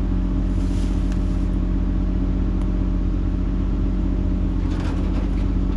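Excavator's diesel engine running steadily at a constant speed with a low rumble, the machine holding its load without revving.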